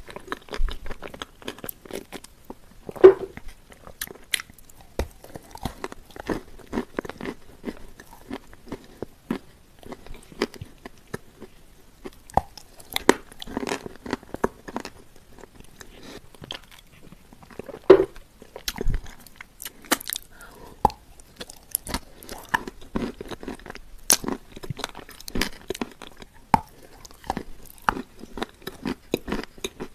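Close-miked chewing of soft, crumbly shortbread, with many sticky mouth clicks and lip smacks, and a few louder bites, about 3 and 18 seconds in.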